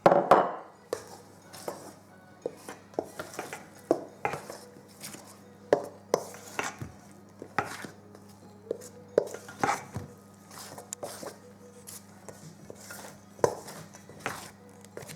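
A table knife stirring soda-bread dough in a mixing bowl, the blade repeatedly scraping and knocking against the bowl in irregular strokes about once or twice a second.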